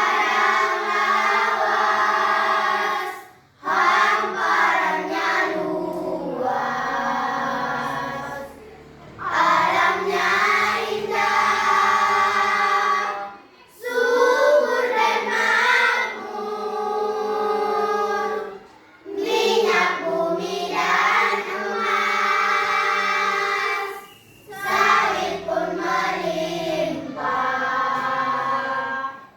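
Choir singing sustained phrases of a song, each a few seconds long and separated by short pauses for breath.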